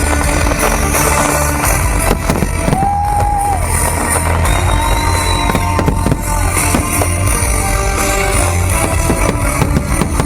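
Loud music with fireworks going off over it: a few sharp bangs among the music.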